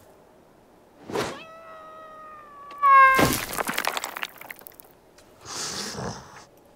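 Cartoon sound effects: a knock, then a long whining, meow-like cry held for about a second and a half that breaks into a louder yelp falling in pitch, trailing off into crackling noise. A short scraping rush follows near the end.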